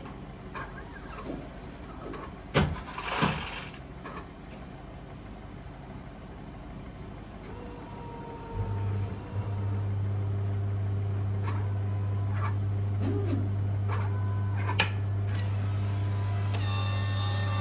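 A few sharp clicks and a short rustle near the start. About eight and a half seconds in, a machine switches on with a brief stutter and then runs with a steady low hum.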